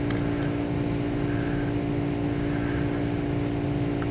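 Steady mechanical hum with a constant low pitched drone, unchanging throughout, like a room air conditioner running.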